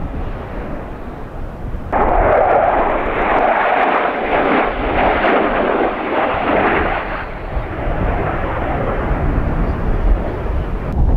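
Jet roar of several F-16 Fighting Falcons flying overhead in formation. The noise swells suddenly about two seconds in and eases after about seven seconds into a lower rumble.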